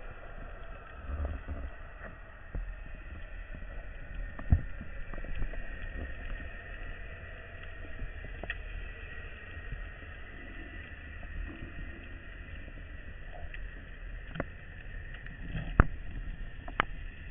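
Underwater ambience picked up by a camera on a speargun: a low, muffled rumble of moving water with scattered sharp clicks and knocks, the loudest about four and a half seconds in and near the end.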